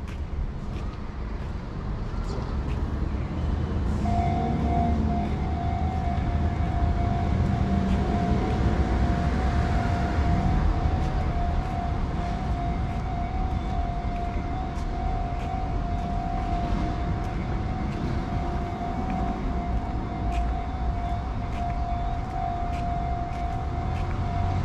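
A railway level-crossing warning signal ringing steadily from about four seconds in, over the low rumble of passing traffic.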